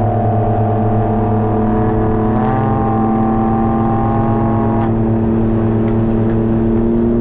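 Can-Am Ryker three-wheeler's engine running steadily at cruising speed, heard from the rider's seat, with a steady hum over road and wind noise.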